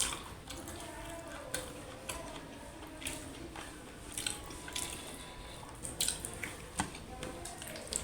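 Close-up eating sounds of rice with mutton curry: wet chewing and squelching, with irregular small smacks and clicks every second or so.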